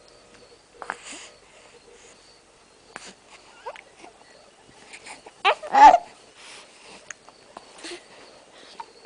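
A young child hiccuping: short, sharp vocal catches at irregular intervals, some with a small voiced squeak. The loudest is a voiced double hiccup about five and a half seconds in.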